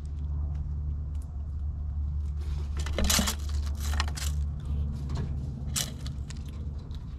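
Eastern gray squirrels' claws scratching and tapping on the wooden boards close to the microphone, a scatter of sharp clicks that is busiest about three seconds in, over a steady low rumble.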